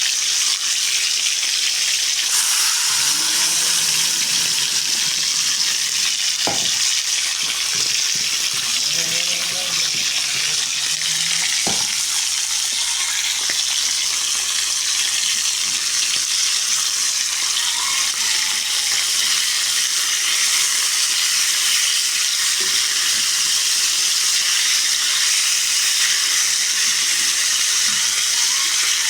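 Food frying in a pan: a steady sizzling hiss, with two light clicks about six and twelve seconds in.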